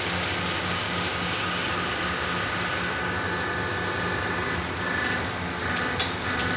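Hydraulic test unit's pump running with a steady hum and a regular low pulsing throb while a single-acting hydraulic cylinder is under test. A few sharp clicks come near the end.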